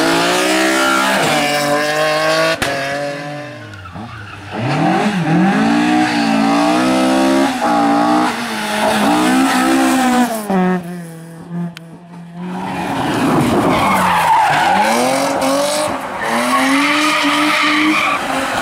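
Rally cars, BMW 3 Series among them, driven hard one after another through a corner. Their engines rev up and drop back repeatedly with gear changes and lifts off the throttle, holding one steady pitch for a couple of seconds about halfway, and the tyres skid and scrabble on loose gravel.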